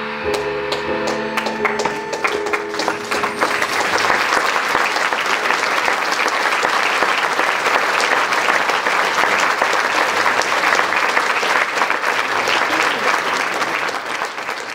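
Audience applause swelling up as the band's final held chord dies away in the first couple of seconds, then dense, steady clapping.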